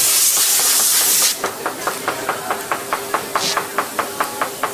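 Compressed air blown in a loud hiss for about a second and a half, then stopping. After it comes a quick, even ticking, about six ticks a second, over a faint steady hum.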